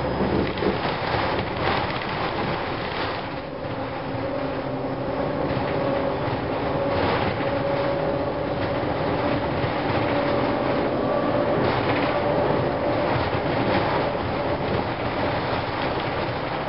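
Inside a 2004 Gillig Phantom transit bus under way: the Cummins ISM diesel and road noise run steadily, with the howl of the Voith transmission heard as a thin whine through most of the stretch. A few knocks and rattles come through over bumps.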